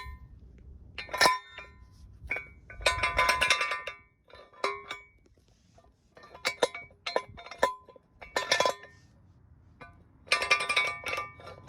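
Steel Daytona 3-ton jack stands clinking and ringing, metal striking metal in about half a dozen separate bursts, some of them quick runs of strokes.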